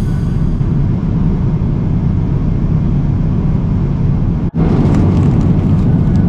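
Steady jet airliner cabin noise in flight: a constant low rumble of engines and airflow heard from inside the cabin, dropping out for an instant about four and a half seconds in.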